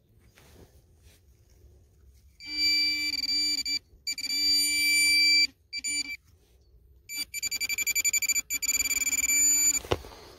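Handheld metal-detecting pinpointer sounding its buzzing alert tone in several bursts as it is probed through the soil, signalling buried metal close by. The last and longest burst pulses rapidly as the tip nears the target.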